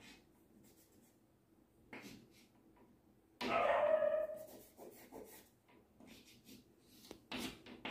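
Chalk being stroked and tapped on a blackboard in short scratchy strokes. About three and a half seconds in, a brief pitched cry or voice, about a second long, is the loudest sound.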